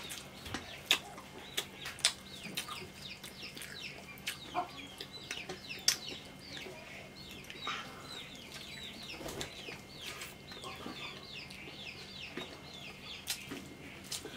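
Chickens giving a run of short falling chirps and clucks, several a second, with scattered sharp clinks of steel plates and mugs.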